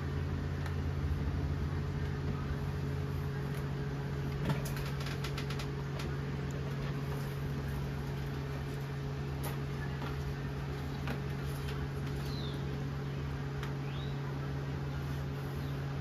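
A steady low machine hum with a few sharp clicks and taps about four to five seconds in. Two faint short rising bird chirps come near the end.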